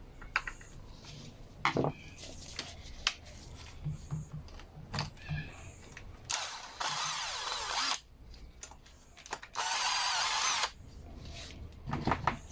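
Power screwdriver with a T20 Torx bit running in two short spells, about 1.7 s and then about 1 s, backing out the two carburetor mounting screws of a Ryobi trimmer. Light clicks of tool handling come before.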